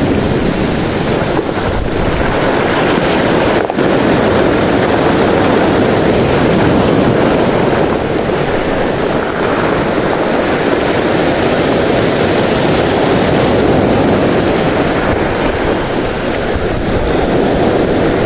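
Rough surf: heavy waves washing in a steady, loud roar, with wind buffeting the microphone.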